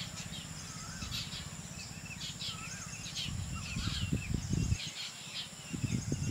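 Rural outdoor ambience: small birds chirping and whistling over and over against a steady high insect buzz. A low rumbling noise comes in about three seconds in and again near the end.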